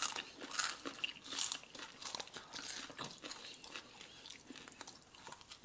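Crunching and chewing of crispy fried food eaten by hand, close to the microphone. The crunches are densest in the first two seconds and thin out to quieter chewing after.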